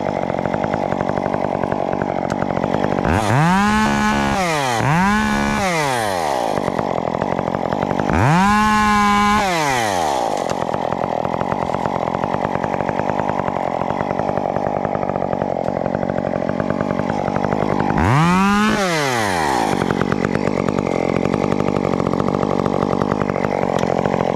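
Stihl chainsaw idling, throttled up four times: twice in quick succession about three seconds in, once held longer about eight seconds in, and once more about eighteen seconds in.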